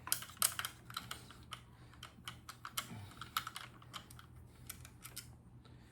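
Quick, irregular light clicks and taps of a nut driver and small metal parts being worked and handled as the lever screw comes out of a Daisy model 1938 BB gun.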